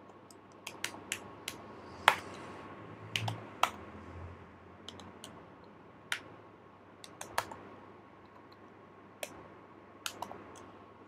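Typing on a computer keyboard: irregularly spaced single keystrokes, the loudest about two seconds in.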